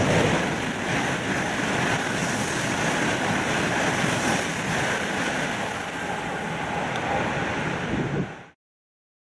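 E7 series Shinkansen bullet train passing at high speed without stopping: a loud, steady rush that stops abruptly near the end.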